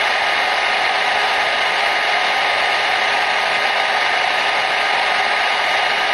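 Hair dryer running with a steady, even whooshing hum, played as soothing white noise for a baby.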